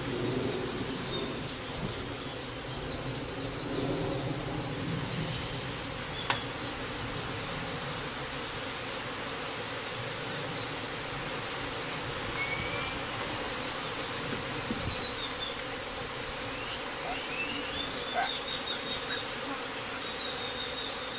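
Steady buzzing of many honeybees flying around a hive opened for inspection, the colony stirred up into the air. A single sharp click about six seconds in.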